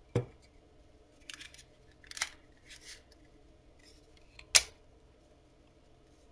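A hard plastic phone case being pressed onto a smartphone: a sharp click, a few short scraping rubs of plastic on plastic, then a louder snap about four and a half seconds in as the phone seats in the case.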